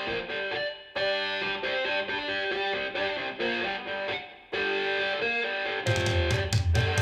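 Recorded music played back through Elfton Elevator hi-fi loudspeakers and picked up in the room: guitar phrases with short breaks between them, then drums and cymbals come in about six seconds in.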